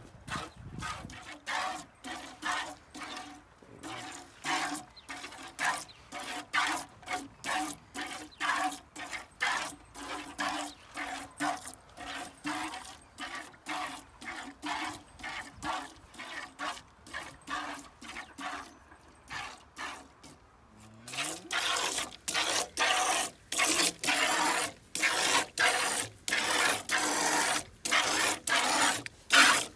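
A cow being milked by hand: rhythmic squirts of milk hitting the milk already in a metal pail, about two a second. The squirts stop briefly about two-thirds of the way through, then come back louder.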